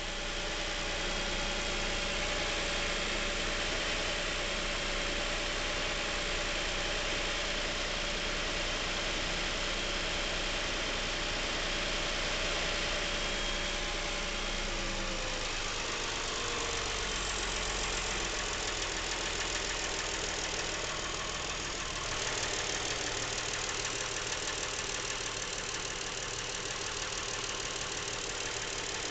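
Lincoln MKX's 3.7-litre V6 idling steadily with a knocking noise, which the owner places at the back of the engine rather than at the cam phasers and timing chains; he has heard it since new and finds it getting worse.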